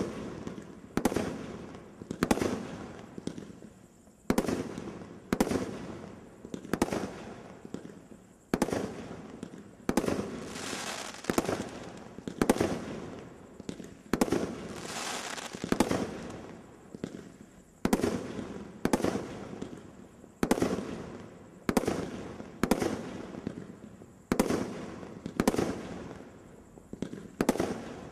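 A 500-gram consumer firework cake firing a steady string of shots, about one a second, each a sharp report followed by a short fading rumble, with longer spells of hiss around ten and fifteen seconds in.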